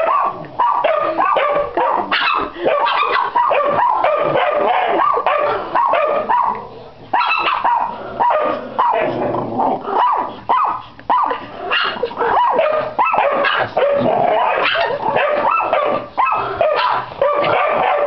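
Dogs barking rapidly and almost without pause, with a short break about seven seconds in.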